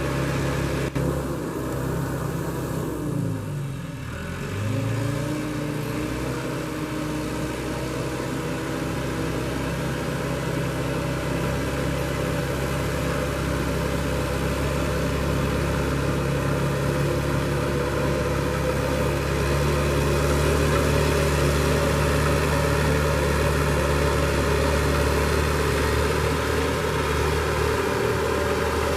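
Bulldozer's diesel engine running as it works, its pitch dropping about three seconds in and climbing back up, then holding steady and growing a little louder in the later part.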